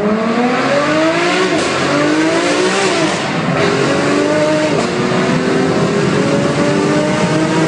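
Ferrari 599 GTO's V12 engine accelerating hard. The revs climb, drop at a gear change about three seconds in, then climb again more slowly in the next gear.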